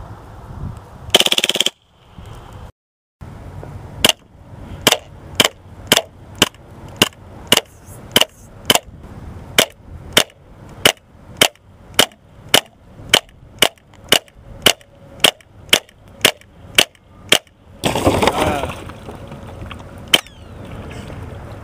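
KWA MP9 gas-blowback airsoft gun firing single shots in a steady string, a little over two sharp cracks a second for about thirteen seconds. Near the end a loud rushing burst of noise lasts about a second, followed by one more shot.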